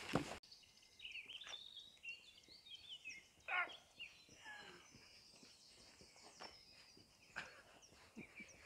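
Faint birdsong: a mix of short chirps and trills, with one louder call about three and a half seconds in.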